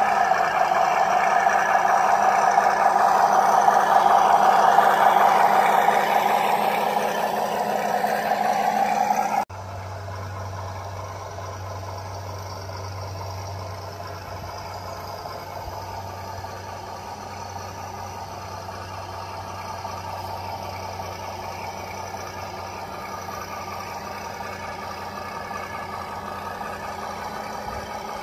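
Drive motor and gears of a WPL B36 Ural radio-controlled model truck running as it crawls over rough ground, the pitch shifting slowly. About nine and a half seconds in, the sound drops abruptly to a quieter, steady running sound as the truck is seen farther off.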